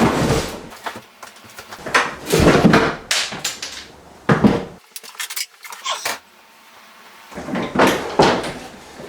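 Wooden kitchen cabinets being taken down: a series of separate knocks, clunks and rattles of cabinet wood, the loudest about two and a half seconds in, with further knocks near four and a half, six and eight seconds.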